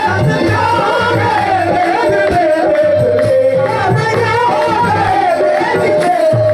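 Loud live qawwali-style music: a singer's wavering, ornamented melody over a steady drum beat.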